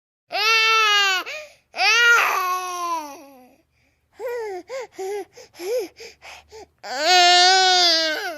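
Baby crying: two long wails, then a string of short, choppy sobbing cries, then another long wail near the end.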